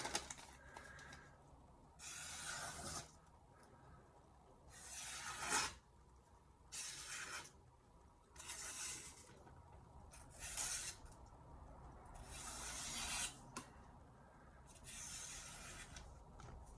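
A freshly sharpened blue #2 carbon-steel kurouchi knife slicing through paper towel in about seven separate strokes, each a soft hiss lasting up to a second. The cuts are pretty quiet, the sign of a keen edge.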